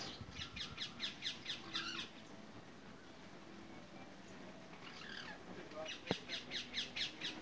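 Rose-ringed parakeets chattering: rapid runs of harsh, evenly spaced call notes, about five or six a second, one lasting about two seconds at the start and another near the end. A single sharp tap comes just before the second run.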